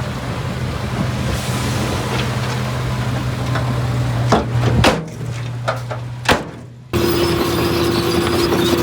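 Heavy earthmoving machine's engine running steadily, with sharp metallic clanks about halfway through and again a little later. Near the end it switches abruptly to a different machine's engine running with a higher, steady hum.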